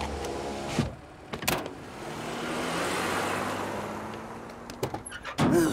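A car drives off: a rush of engine and tyre noise swells for about two seconds and fades away. Before it there is a short stretch of cartoon music and a sharp knock about a second in, and near the end there is a short vocal noise.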